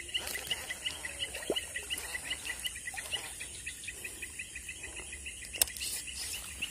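Fast, even chirping, about seven chirps a second, from an animal, over a high steady insect hiss. There is one sharp click about five and a half seconds in.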